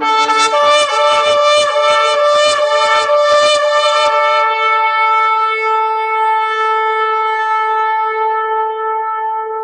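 Shofar (ram's-horn trumpet) blown: about four seconds of quick pulsing notes, several a second, then one long steady held note.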